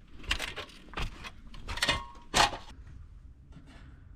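A run of sharp clicks and light metal knocks, about six in the first two and a half seconds, one of them with a brief ringing tone. They fit a metal electrical panel being opened and a breaker being switched off.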